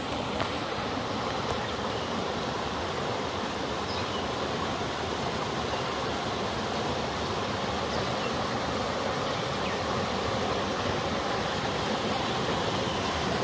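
A small river cascade: water rushing and splashing over rocks in a steady rush that grows slightly louder.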